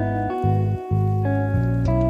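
Background music: held keyboard notes over a bass line, changing about every half second.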